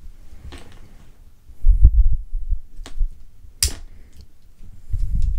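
A small metal blade tip prying under the Cellidor plastic scale of a Swiss Army knife, giving two sharp clicks about three and three and a half seconds in, between dull bumps of hands handling the knife.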